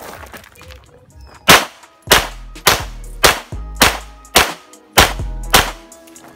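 A pistol firing eight shots in a steady string, about 0.6 seconds apart, beginning about a second and a half in, as the shooter works through a practical-shooting stage.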